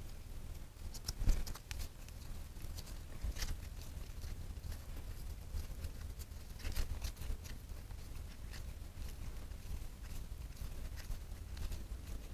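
Faint scattered clicks and light metal taps as a coolant drain bolt is refitted by hand to a motorcycle engine, over a low steady hum. The sharpest click comes about a second in.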